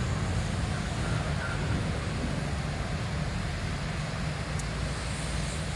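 Steady low rumble of a cargo ship running itself aground under engine power, mixed with wind noise on the microphone.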